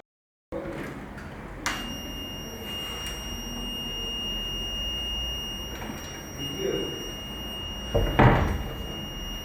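Homemade door alarm's buzzer sounding one steady high-pitched tone, which comes on with a click about two seconds in. A loud thump sounds near the end.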